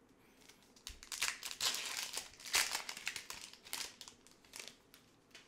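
Foil wrapper of a Fleer Showcase hockey card pack being torn open and crinkled: irregular crackling rustles that start about a second in, are loudest midway and trail off near the end.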